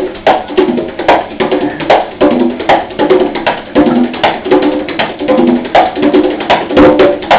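Conga drum played by hand in a steady, repeating rhythm. Pitched tones mix with sharp slaps, and the pattern comes round about every 0.8 seconds.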